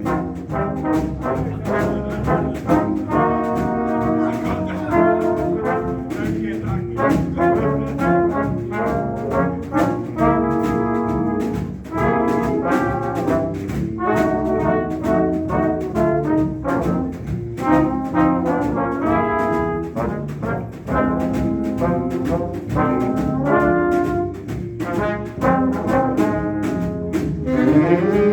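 Swing band playing an instrumental passage, with the brass section (trombones and trumpets) carrying chordal riffs over the rhythm section.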